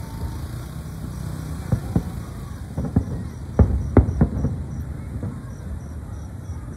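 Aerial fireworks shells bursting at a distance: a string of about six sharp bangs, starting about two seconds in and loudest near the middle, over a low rumble.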